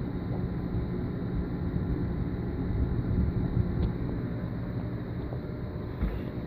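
Steady low hum and rush of aquarium air pumps and filters, with air bubbling up through the tanks. A soft knock near the end.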